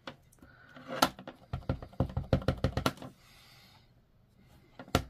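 Hard clicks and taps of a clear photopolymer stamp on its block knocking down on the work surface, with a rapid run of about a dozen taps in the middle lasting about a second and a half and single clicks before and after.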